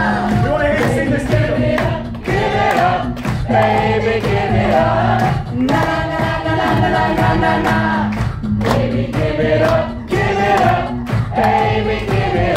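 Male a cappella group singing live in close harmony over a beatboxed vocal-percussion beat.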